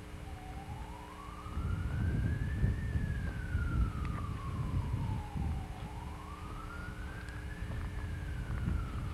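Emergency-vehicle siren in a slow wail, its pitch rising and falling twice, each sweep taking about five seconds. It sits fainter than a low rumbling noise on the microphone that grows louder about a second and a half in.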